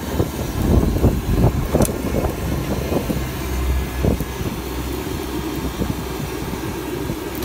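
Skewered meatballs bubbling in hot oil in a street vendor's steel deep fryer, with tongs clicking against the metal twice, over a steady low engine rumble from street traffic.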